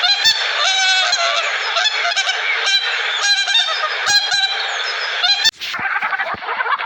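A flock of geese honking, many loud overlapping calls. About five and a half seconds in it cuts abruptly to a different recording of short, busy bird calls.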